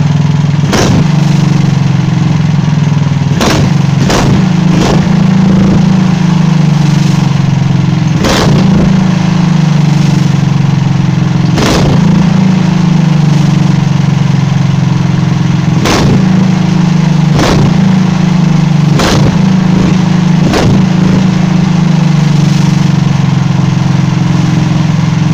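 Go-kart engine running hard with its chain off, held at a steady high speed that its governor will not let it push past. Sharp pops from the exhaust come every few seconds, which the owner puts down to pressure escaping quickly rather than a backfire problem.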